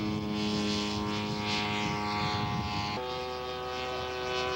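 Radio-controlled scale model airplane engines running at a steady pitch. About three seconds in the sound changes abruptly to another steady engine tone.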